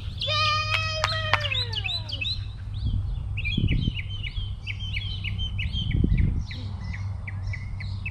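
Songbirds chirping over and over, with a steady low rumble underneath. About half a second in, one drawn-out high call holds its pitch for about a second, then slides down.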